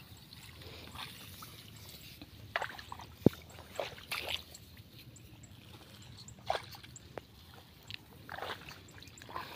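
Footsteps wading through a flooded rice paddy: a handful of irregular splashes and sloshes in shallow water and mud. One sharp click, the loudest sound, comes about a third of the way in.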